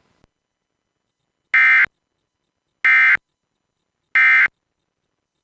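Emergency Alert System End of Message signal: three short, identical buzzing bursts of digital data tones, evenly spaced about a second and a quarter apart, marking the end of the alert.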